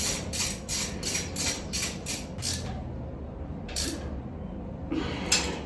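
Ratchet socket wrench with an 8mm socket tightening a Jubilee hose clip: a run of quick ratcheting strokes, about three a second, that stops about two and a half seconds in, followed by two more single strokes near the end.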